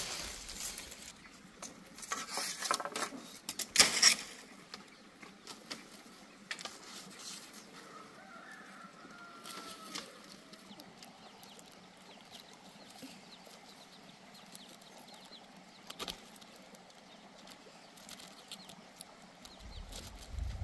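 Rustling and crackling of leaf thatch and bamboo strips being handled and tied, with a cluster of sharper clicks and snaps about two to four seconds in and scattered light clicks after. A faint bird call with a rising and falling pitch comes about eight seconds in.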